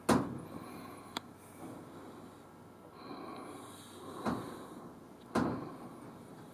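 Handling knocks: one loud sharp knock at the start, a short click about a second later, and two duller thumps around four and five seconds in, over faint room noise.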